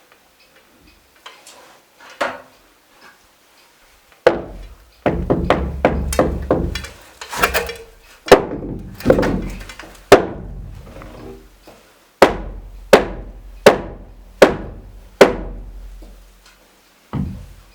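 Hammer striking wood: a quick run of blows about four seconds in, then single heavy strikes roughly a second apart, each ringing briefly.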